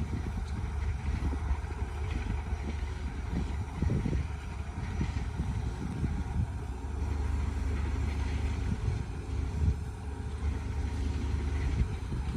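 Construction machinery's diesel engine running with a steady low rumble.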